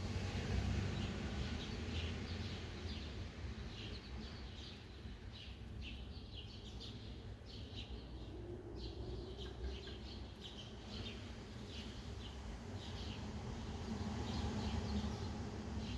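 Sparrows chirping, many short repeated chirps, over a steady low rumble of city background noise.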